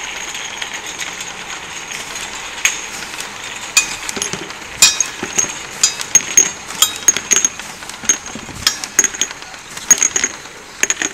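MT-200 automatic round-bottle labeling machine running: small glass bottles clink sharply against each other and the steel guide rails as the conveyor carries them through the labeling belt, over a steady machine running noise. The clinks come irregularly from about three seconds in, several a second at times, each with a short glassy ring.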